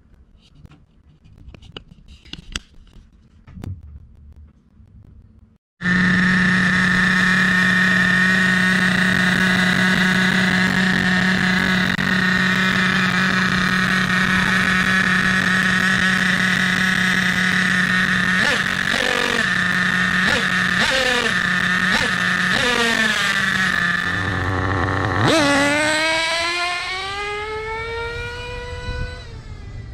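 Nitro RC buggy engine. After a few seconds of faint clicks, it idles steadily with a high buzz, takes several short throttle blips, then revs hard at about 25 s; its pitch falls and it fades as the buggy drives away.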